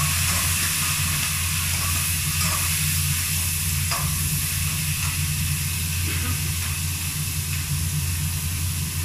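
Food sizzling and frying in a pan on a gas stove, with light stirring, over the steady low hum of a kitchen range hood fan.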